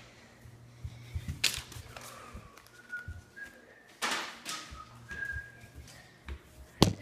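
Soft whistling, a few short held notes, with two brief rustling rushes and a sharp tap near the end.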